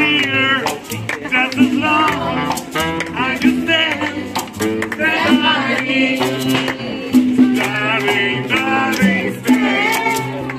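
Live acoustic street band: voices singing a lively song over a plucked upright double bass and a saxophone, with sharp rhythmic clicks running through it.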